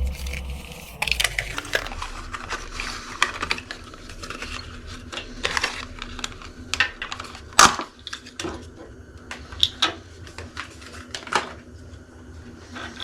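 Small hard parts clicking and clinking as a motorcycle USB charger and its cable are unpacked and handled, with one louder knock a little past halfway.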